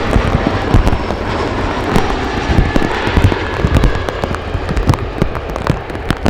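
Rain drops striking a surface right by the microphone: a dense, irregular crackle of hits over a steady wash of noise.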